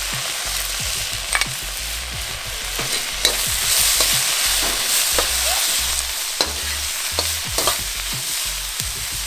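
Diced peppers, onion, garlic and chili sizzling in hot oil in a wok, with a steady hiss. A metal wok spatula scrapes and knocks against the wok in short sharp clicks as the vegetables are stirred.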